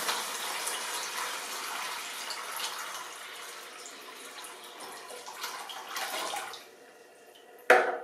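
Water pouring out of a dehumidifier's 2-litre plastic water bucket and splashing into a basin, tapering off and stopping about seven seconds in. A single sharp knock near the end is the loudest sound.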